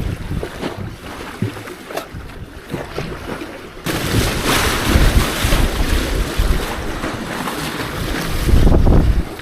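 Wind buffeting the microphone over rushing water; a strong gust sets in suddenly about four seconds in and holds until just before the end, with a low rumble underneath.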